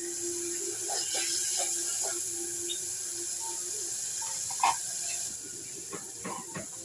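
Spices frying in hot oil in a metal pot, sizzling steadily; the sizzle picks up as a spoonful of paste is added. There is a sharp clink a little under five seconds in.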